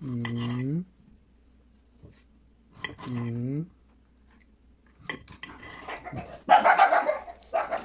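Knife slicing a tomato on a ceramic plate: scattered clicks of the blade striking the plate, then a louder scraping clatter near the end. A man's voice gives two short drawn-out sounds near the start and about three seconds in.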